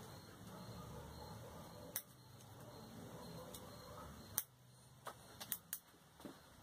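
A few faint, sharp clicks over a low steady hiss: bonsai wire and hand tools being handled while wiring a boxwood, with a loose run of clicks near the end.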